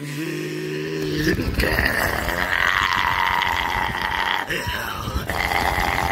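Birds calling: a low, held call in the first second, then a short gliding call about five seconds in, over a steady background hiss.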